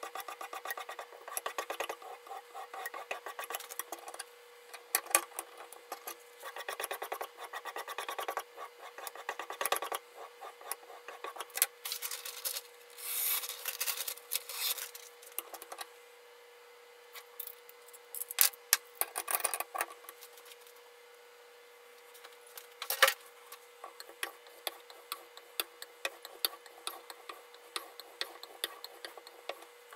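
Knife edge being scraped in repeated hand strokes against a sharpening abrasive, a rasping rub. Around the middle a sheet of paper rustles as the edge is tested on it.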